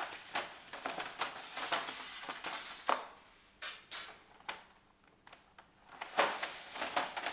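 Long metal rail profile being slid out of a cardboard shipping tube, scraping and clicking against the tube and the tile floor in a series of short rasps, with brief pauses about three and five seconds in.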